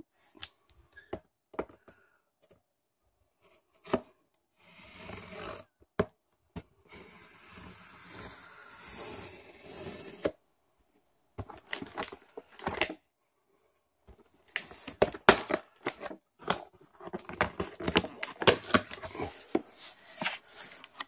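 Small folding knife slitting the packing tape on a cardboard box: a few clicks and scrapes, then two stretches of hissing, tearing cuts. After a short pause comes a busy run of cardboard scraping and knocking as the flaps are pulled open.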